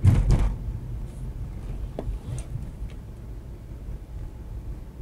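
Low, steady rumble of a car's engine and tyres heard from inside the cabin while driving. A brief loud burst of noise comes right at the start.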